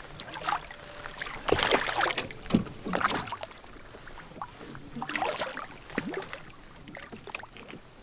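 Hooked brook trout thrashing and splashing at the surface beside the canoe as it is played on a fly rod. The splashing comes in several short bursts, loudest from about one and a half to three seconds in and again around five to six seconds.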